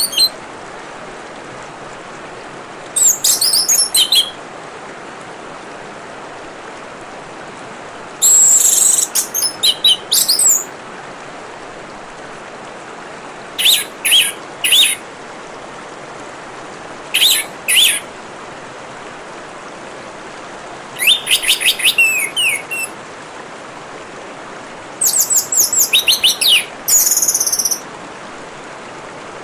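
Orange-headed thrush singing in short phrases of rapid high notes, six phrases a few seconds apart, over the steady rush of trickling water.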